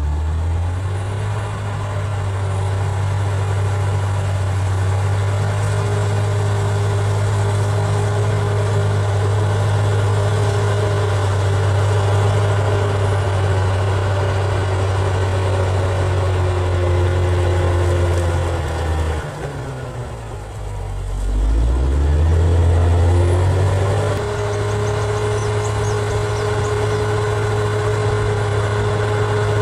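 Bulldozer's diesel engine running steadily. About two-thirds of the way through, the revs drop briefly, then climb back up and settle again.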